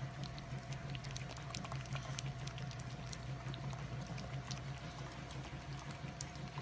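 French bulldog puppies lapping and smacking at a tray of wet mashed food: a busy patter of small wet clicks, over a steady low hum.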